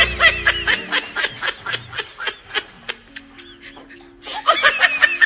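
High-pitched giggling laughter over background music. A quick run of giggles lasts the first two to three seconds, then another burst comes near the end.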